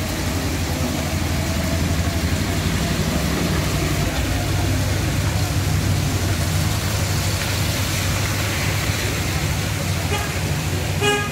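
Heavy rain falling on a flooded street, a steady hiss, with the low running of auto-rickshaw and motorbike engines passing through the water. A brief horn beep sounds near the end.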